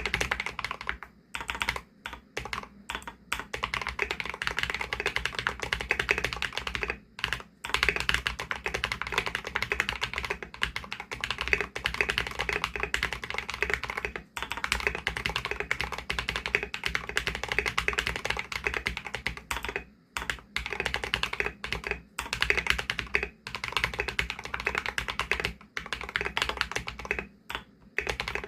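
Mechanical keyboard with mStone Groove T Coral V2 tactile switches being typed on continuously, a fast, dense run of keystrokes broken by a few short pauses.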